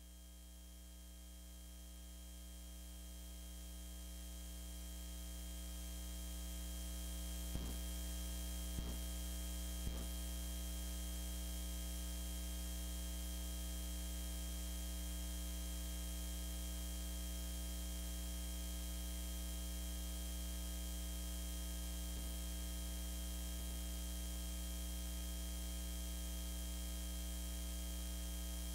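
Steady electrical mains hum with a ladder of buzzing overtones and hiss. It grows louder over the first several seconds, and three faint clicks come about eight to ten seconds in.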